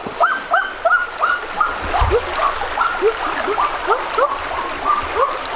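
Rushing stream water, with a rapid series of short rising yelps, about three a second, throughout. A second, lower series of yelps joins about halfway through.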